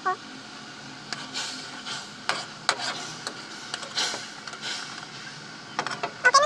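Metal spoon stirring and scraping around a metal wok of boiling sugar syrup, a handful of short scrapes over a low, steady bubbling hiss.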